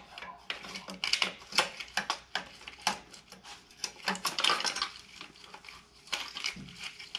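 Hand wrench clinking and clanking against metal engine fittings as the coolant lines are worked loose from an engine: irregular sharp metallic clicks throughout.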